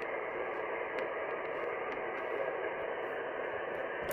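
Icom IC-7300 HF transceiver's speaker giving a steady hiss of band noise (static), tuned to an upper-sideband voice channel on the 20-metre band with no clear station coming through.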